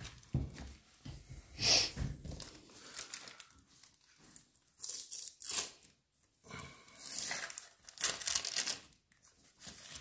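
Cosmoline-soaked rifle wrapping crinkling and tearing as it is handled. It comes in irregular bursts with short quiet gaps.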